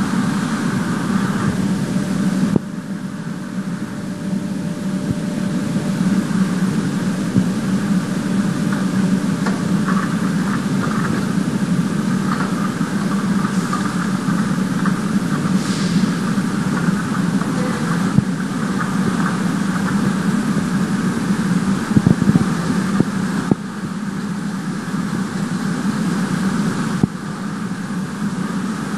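Automatic welding line for refrigeration compressor shells running: a steady mechanical drone with a low hum, and a scatter of faint clicks and crackles.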